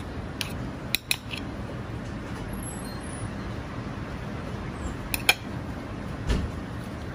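A few sharp clicks and taps of a metal spatula against a plate and a plastic cutting board: a cluster about a second in and a pair around five seconds. A duller thump comes near the end, all over a steady background hum.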